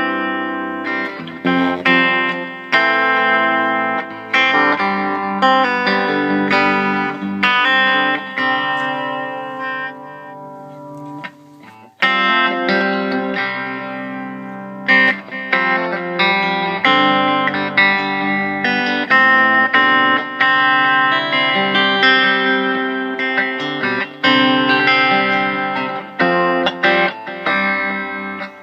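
Electric guitar played through a Bearfoot Pale Green Compressor pedal: picked chords and single notes, each ringing out after its attack. Around ten seconds in, one chord is left to die away until a new strum comes in at about twelve seconds.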